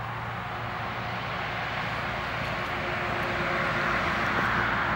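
Steady engine drone of a passing machine, swelling and growing louder toward the end.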